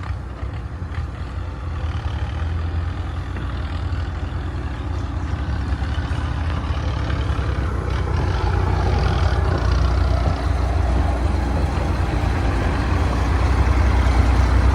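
Heavy engine of earth-moving machinery running with a deep, steady rumble, growing steadily louder.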